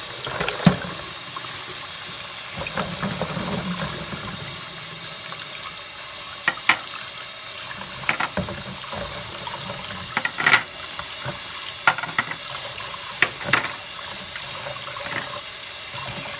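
Kitchen tap running steadily into a sink as scrubbed oysters are rinsed, with sharp clicks of the shells knocking against each other or the sink now and then.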